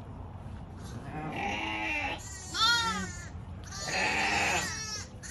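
Shetland sheep bleating: three wavering calls of about a second each, a fourth starting at the very end.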